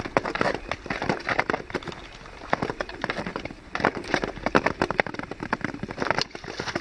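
Thin new ice cracking and clinking in rapid, irregular clicks as skaters and their ice-testing poles work over broken ice plates at the edge of open water.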